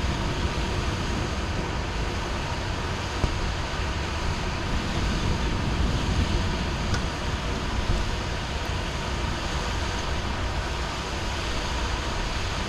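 Heavy rain falling steadily: a constant hiss with a deep rumble underneath.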